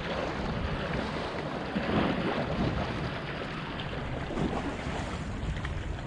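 Wind buffeting the microphone over small waves washing against a concrete seawall: a steady rushing noise with a low rumble, swelling briefly about two seconds in.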